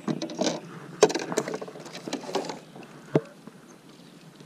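Fishing rods and spinning reels handled on a plastic kayak deck close to the microphone: a run of clicks, knocks and rustles for nearly three seconds, then one sharp knock a little after three seconds.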